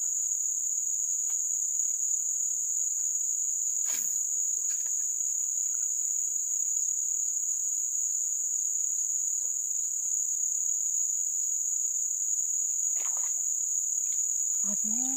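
Insects buzzing in a steady, unbroken, high-pitched drone, with a faint knock about four seconds in and another near the end.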